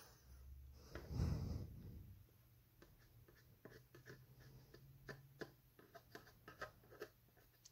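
Faint handling of a hard plastic box at its hinge: a brief rustle about a second in, then a scattering of small clicks and taps as fingers work the repaired hinge.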